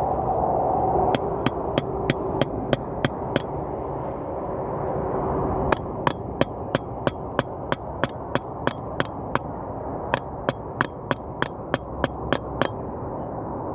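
Three quick runs of sharp hammer taps, about four a second, with short pauses between them. The taps drive a drill bit like a punch to knock a hole through the metal.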